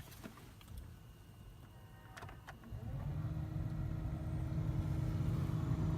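A few clicks, then about three seconds in the 2005 Dodge Durango's HVAC blower fan motor starts, spins up and settles into a steady whir with a steady hum. It runs quietly now that the fan has been cleaned and reinstalled.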